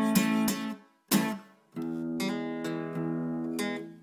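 Background music of strummed acoustic guitar chords. The strumming breaks off under a second in, a single chord rings out and dies away, and the strumming picks up again a little before the two-second mark.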